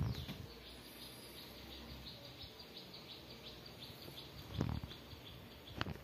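A rapid, even series of short high chirps, several a second, with dull thumps at the start and twice near the end.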